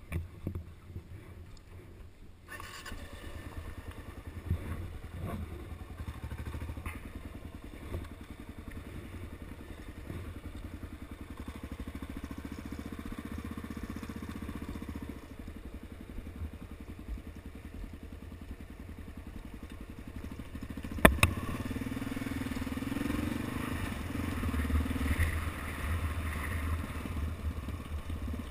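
Dual-sport motorcycle engine running as the bike rides along a gravel track. It is quieter for the first couple of seconds, then louder. About two-thirds of the way through there is one sharp knock, after which the engine runs louder.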